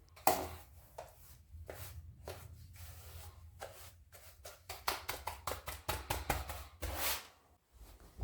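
Brush strokes working a water-resistant coating onto a shower wall before tiling: a run of short scratchy strokes, irregular at first, then quickening to about five a second in the second half, over a steady low rumble.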